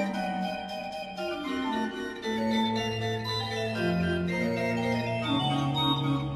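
Pipe organ playing a fugue: several lines moving together on the manuals over long held low pedal notes that step down in pitch.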